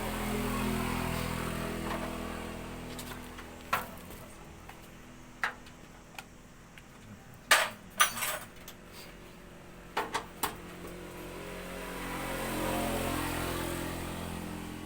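Sharp metallic clinks and knocks of tools and parts being handled during motorcycle engine work, about eight short strikes in the middle. A motor vehicle engine hums in the background, louder at the start and again near the end.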